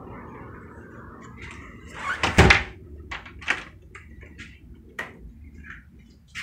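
A loud bang about two seconds in, followed by a scattering of short, sharp pops and clicks.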